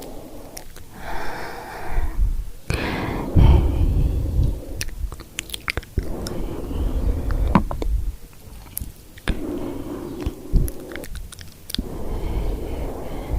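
Close-up ASMR triggers on the microphone: about five swishing passes of something rubbing directly on the mic, each a second or two long with a deep rumble, separated by brief pauses and scattered with soft sharp clicks.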